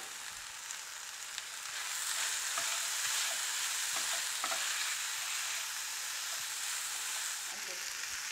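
Vegetables sizzling as they stir-fry in a frying pan, turned with a spatula that gives a few light taps against the pan; the sizzle grows louder about two seconds in.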